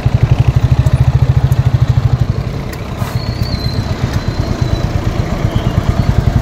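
Royal Enfield single-cylinder motorcycle engine running at low speed with a steady, rapid thumping beat; it eases off about two and a half seconds in and picks up again near the end.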